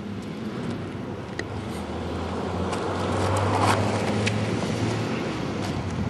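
A car passing on the street: a steady engine hum with tyre noise that swells, is loudest about three and a half seconds in, then fades.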